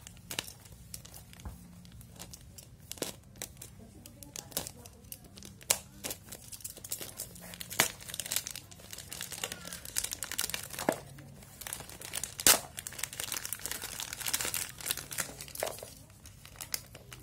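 Plastic mailer bag crinkling and tearing as it is cut into and pulled apart by hand, in irregular sharp crackles that grow denser in the second half.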